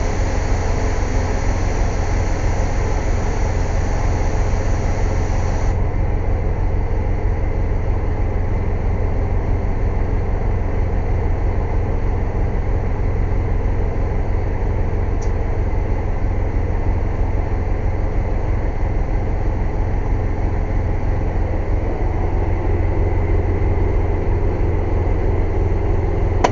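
Air compressor running steadily with a loud, low drone. A higher hiss above it cuts off about six seconds in.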